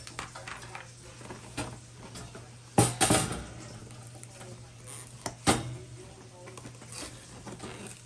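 Clicks and light metallic clatter of a knife and hands working on a black metal wire K-cup storage drawer, cutting it free of its packaging. A sharp double knock comes about three seconds in, with single knocks later.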